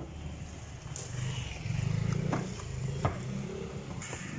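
Large knife chopping through yellowfin tuna onto a wooden chopping block: a handful of sharp strikes, one at the start and three more spaced about a second apart in the second half. A low engine rumble runs underneath, swelling after the first second or so.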